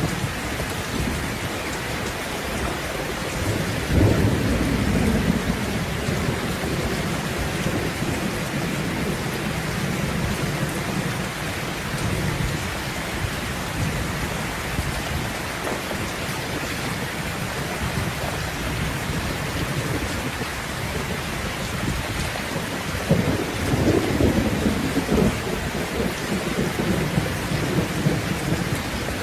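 Steady heavy rain with rolling thunder: one low rumble swells about four seconds in and another around twenty-three seconds in.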